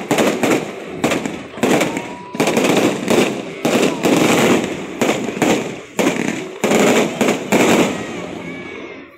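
Fireworks display: aerial shells bursting in a rapid, uneven run of sharp bangs, several a second, with crackle between them and a few faint whistles. The bangs thin out and fade near the end.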